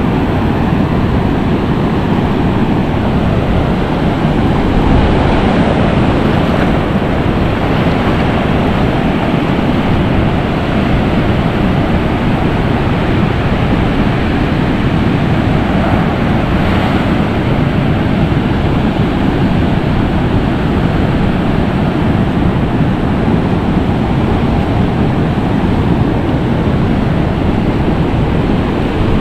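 Steady rush of sea surf washing over shallow water at the shoreline, with wind noise on the microphone.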